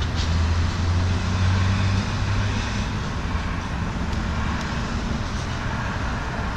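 Road traffic noise, with a passing vehicle's low engine hum strongest in the first two seconds, and a few faint light ticks.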